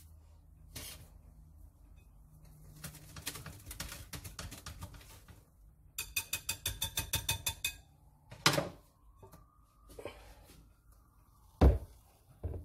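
Kitchen bowl and utensil handling: scattered clicks and scrapes, a rapid rattling run of about seven strokes a second lasting under two seconds, and a loud knock near the end, just before chocolate cake batter is poured into the greased pan.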